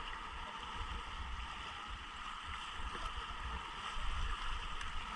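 Steady rush of river water around a paddled inflatable raft on a fast river, with a low rumble underneath.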